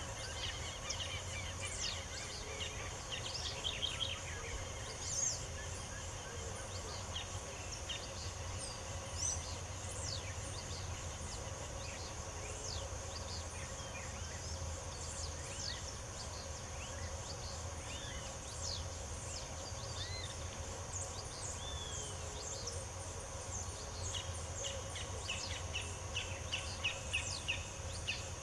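Several small birds chirping and singing in short notes and sweeps, with rapid trills in the first few seconds and again near the end, over a steady high-pitched drone and a low steady hum.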